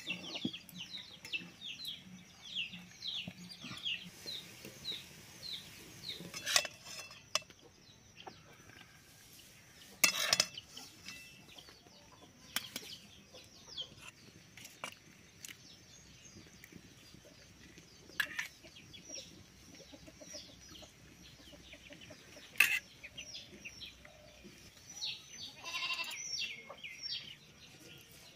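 Steel ladle and pots clinking: a handful of sharp clinks spread out, the loudest about ten seconds in and again past twenty seconds. High bird chirps repeat through the first few seconds.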